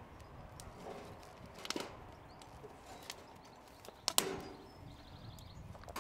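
A few sharp wooden knocks and clacks as sticks are handled and fed into a metal wood-fire box, the loudest a little after four seconds in.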